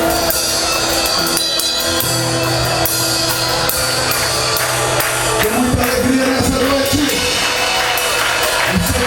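Live band playing the opening of a song: a drum kit keeping time with regular cymbal strokes, over bass and other instruments, with a wavering pitched part coming in about five seconds in.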